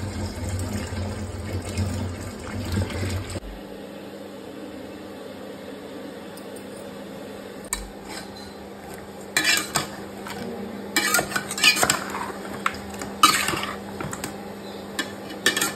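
Metal utensil clinking and scraping against a steel bowl in several short bursts while raw fish pieces are mixed with turmeric and chili powder. Before that, a steady rushing noise cuts off suddenly about three and a half seconds in.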